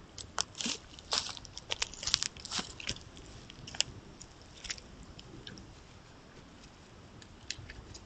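Crisp crunches and clicks from a Roosevelt elk close to the microphone, a dense run in the first three seconds, then a few scattered ones.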